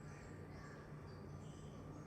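Quiet background: a faint steady low hum with a thin high tone, and scattered faint short high chirps.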